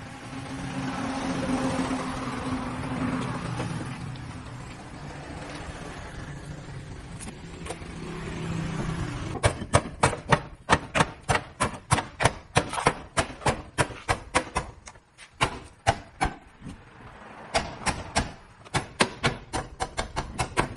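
A motor runs steadily for several seconds. Then, about halfway in, a long series of sharp hammer strikes begins, two to three a second, with a short pause before they resume: hammering during truck tyre work.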